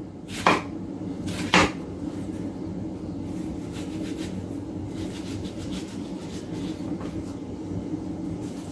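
Chef's knife mincing a red onion on a wooden cutting board: two sharp knocks of the blade on the board in the first two seconds, then softer, irregular chopping taps over a steady low hum.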